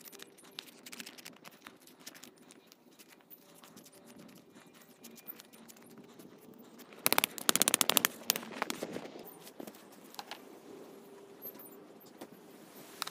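Scattered light clicks and knocks from handling a push mower's air filter while it is being cleaned. About seven seconds in comes a quick run of sharp taps lasting just over a second, the loudest part.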